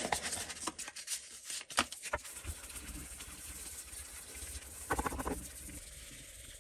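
Fine P1200 sandpaper scratching and rustling against the steel sole of a Record No 7 jointer plane as it is wrapped round a metal block and rubbed along the sole, during final sanding of the sole. Sharp clicks come in the first two seconds, and a short run of quick strokes about five seconds in.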